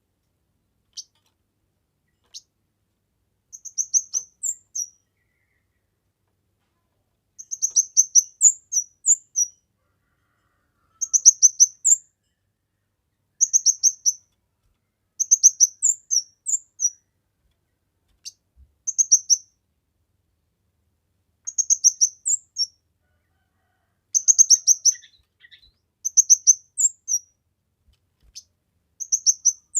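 A kemade songbird singing: short, high-pitched phrases of rapid chirping notes, repeated every second or two with brief pauses between them.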